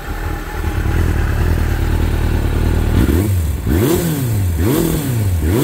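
Suzuki RF600R's 600 cc double-overhead-cam, 16-valve four-cylinder engine idling through an Akrapovic aftermarket exhaust. About halfway through, the throttle is blipped three times, the revs rising and falling back each time. The owner says it is running a little rough on old fuel.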